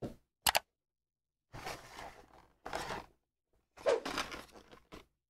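Clear plastic blister packaging being handled: two short sharp clicks, then two bursts of crinkling and scraping as the plastic tray is gripped and lifted.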